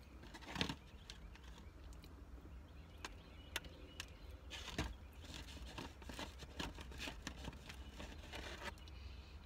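Faint eating sounds: biting into and chewing a biscuit, with scattered small clicks and rustles and one knock about half a second in, over a low steady hum.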